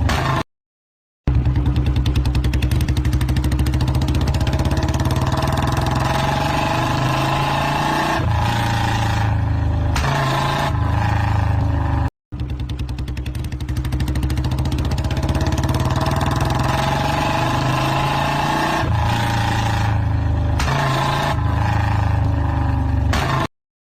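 Royal Enfield motorcycle engine running with a steady, rapid exhaust beat, its note shifting up and down now and then. The same stretch of engine sound plays twice, broken by short gaps of silence.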